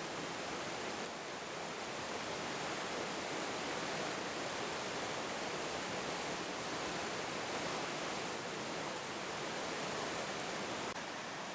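Steady rushing of a mountain creek's water flowing over rocks.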